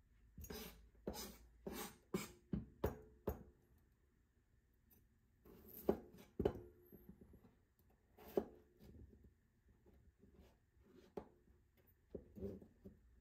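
Kitchen knife cutting food on a plastic cutting board: a quick run of about six knocks, then scattered single cuts.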